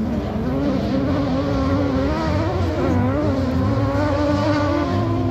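Autocross race car engines running hard, their pitch swinging up and down as they rev, with more than one engine heard at once.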